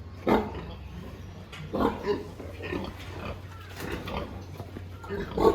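A sleeping pig snoring: a string of short, rough snores, loudest about a third of a second in, around two seconds in, and at the end, over a steady low hum.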